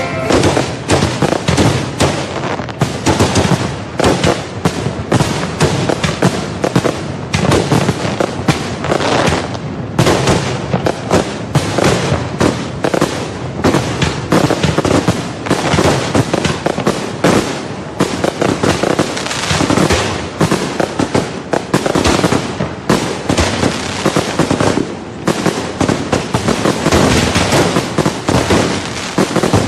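Fireworks display: a continuous barrage of bangs and crackling reports, closely packed with no real pause.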